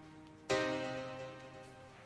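Background music: one pitched note struck about half a second in, dying away slowly.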